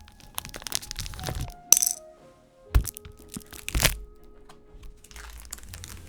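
Background music over handling noise from mechanical keyboard parts: three sharp clicks of small hard parts, spaced about a second apart, with soft rustling around them.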